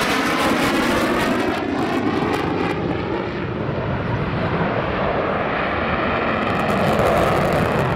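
Jet noise from a flypast by a RAAF F-35A Lightning II's Pratt & Whitney F135 turbofan: a loud, steady rumble with a hiss whose pitch sweeps up and down as the jet passes and moves away.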